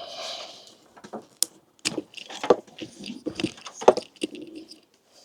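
Hands working a diesel heater's wiring connector clip loose: a brief rustle, then a string of irregular small clicks, taps and knocks of plastic and metal parts being handled.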